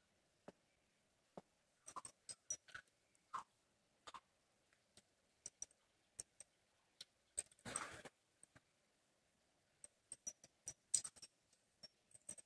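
Faint, irregular clicks and ticks as small dogs move about on a bed, with a short louder rustle about halfway through.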